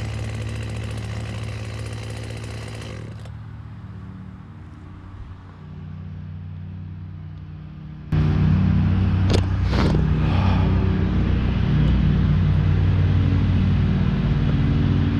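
An engine running steadily. It cuts in loud about eight seconds in, after a quieter low hum, with two short sharp sounds just after it starts.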